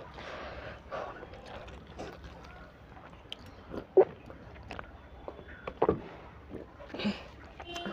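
Close-up eating sounds: a full mouthful of egg noodles being chewed, with sips and swallows of water from a steel tumbler and scattered wet clicks. A sharp click about four seconds in is the loudest.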